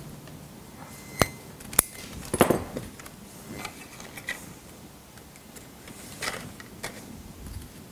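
Light clicks and small rattles of wire and mesh squares being handled and fitted into a bonsai pot to cover its drainage holes, with two sharp ticks about a second and nearly two seconds in and a short rattle just after.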